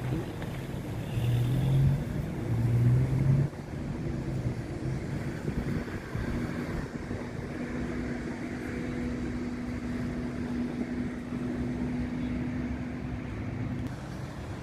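An engine running: a louder low hum for the first few seconds, then a steady, higher hum that cuts off suddenly near the end.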